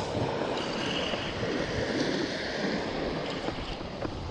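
Small waves breaking and washing up a sandy beach, with wind rumbling on the microphone.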